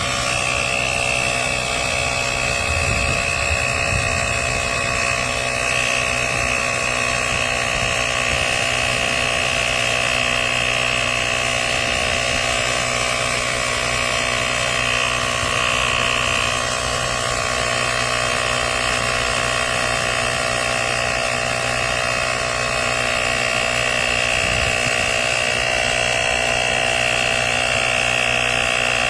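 Portable cordless tire inflator's compressor running steadily: a continuous motor drone with a strong, steady high tone, unchanging throughout.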